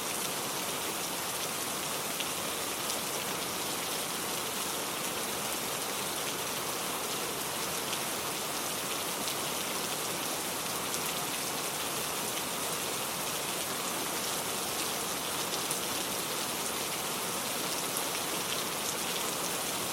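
Steady rain falling, an even hiss with many fine, close drop ticks throughout.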